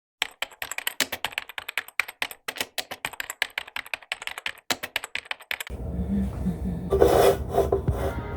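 Rapid, irregular typing on a computer keyboard, a quick run of key clicks for about five and a half seconds. Near the end a low hum and background music come in.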